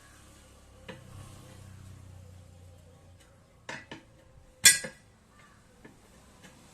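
Metal tools clanking during tyre work: a handful of separate metallic knocks and clinks, the loudest a sharp clang a little before five seconds in, over a faint low hum in the first half.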